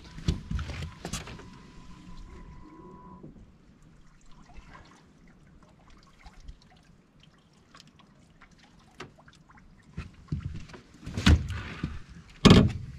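Water splashing and trickling in a boat, with small knocks and two loud thumps about a second apart near the end.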